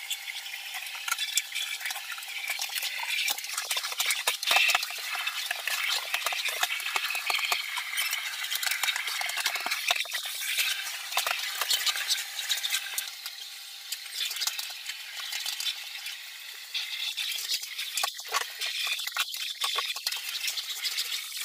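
Canister vacuum cleaner running, with a dense crackle throughout, like grit rattling up the hose, and a few louder knocks near the end.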